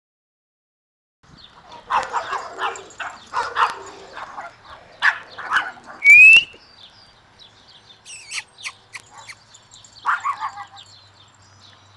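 Pekingese puppies yipping and squealing as they play, in short clusters, with a loud rising squeal about six seconds in. The sound begins after about a second of dead silence.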